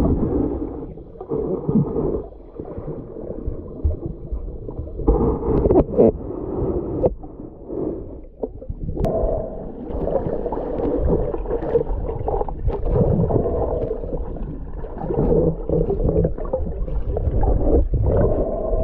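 Muffled underwater water noise from a camera held below the surface: sloshing and gurgling that swells and fades, with a sharp click about nine seconds in.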